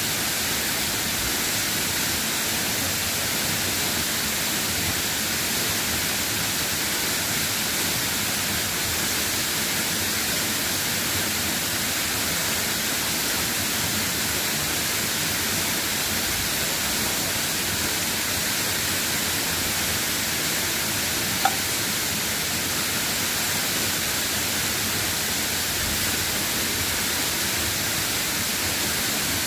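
Steady hiss of falling rain, with a single short tick about two-thirds of the way through.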